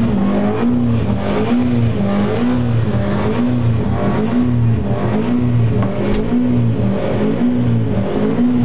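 Triumph Daytona motorcycle engine running on a test dynamometer. Its steady note rises and falls in pitch about twice a second.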